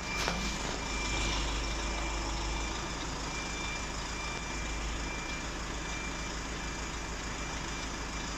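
Truck engine idling steadily under a constant hum, with a high electronic beep sounding on and off in short stretches. A sharp click comes just after the start.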